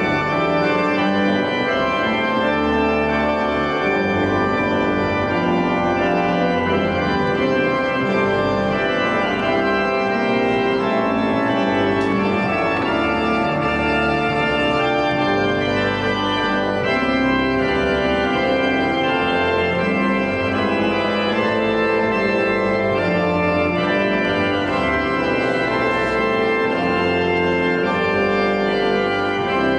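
Organ played in a steady run of sustained chords over a low bass line that changes every second or so.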